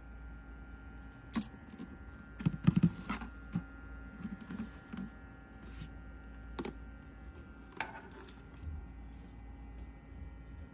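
A run of light clicks and small knocks from something being handled, bunched most thickly about two to three seconds in, then scattered singly. A steady faint hum runs underneath.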